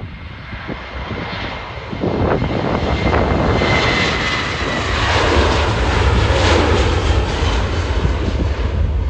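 Twin jet engines of a Boeing 737 at takeoff thrust on the takeoff roll, a loud deep rumble and roar that swells about two seconds in as the aircraft passes close by. A high whine rises over the rumble briefly in the middle, and the noise stays strong as the nose lifts for rotation near the end.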